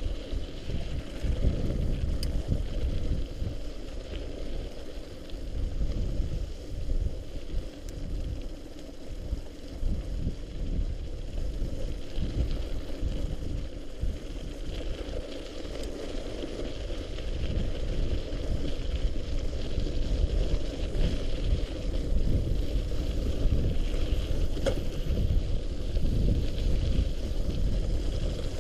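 Specialized Stumpjumper mountain bike riding through mud and slush: a steady low rumble of tyres on the wet trail, mixed with wind buffeting the microphone.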